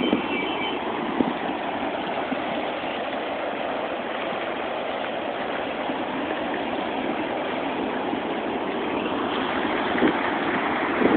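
Steady rushing noise of ocean surf and wind on a phone microphone, with a few short low buffets.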